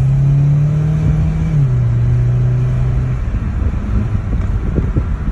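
2020 Hyundai Elantra GT's engine pulling under hard acceleration, holding a steady note, then dropping in pitch about one and a half seconds in and holding again. After about three seconds the engine note fades into an uneven rumble.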